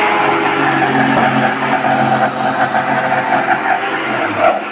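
Electric motor of a woodworking power tool running steadily and loud, a humming drone of several tones over a rough noise, easing off near the end.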